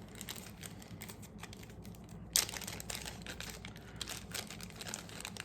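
Packaging rustling and crinkling as it is handled, in irregular short crackles, with one sharper, louder crackle a little over two seconds in.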